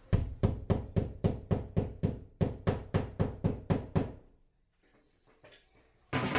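Hammer driving a hollow-wall anchor into drywall: about sixteen quick, sharp strikes at roughly four a second, with a short break halfway through. A single knock comes near the end.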